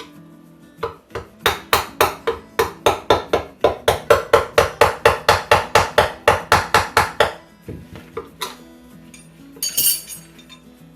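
Rapid hammer strikes on metal, about four a second for some six seconds, then a few scattered knocks, over background music.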